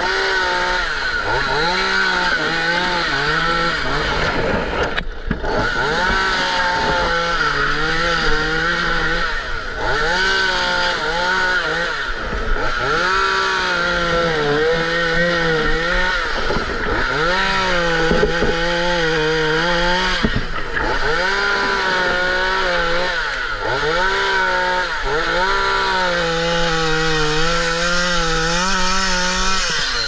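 Two-stroke gas chainsaw running hard, cutting through dry palm fronds and frond bases. Its pitch dips and climbs back every couple of seconds as the chain bites into the palm and frees.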